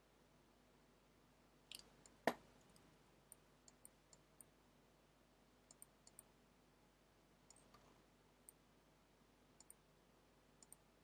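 Faint, scattered clicks of a computer mouse, some in quick pairs, with one sharper, louder knock about two seconds in, over near silence.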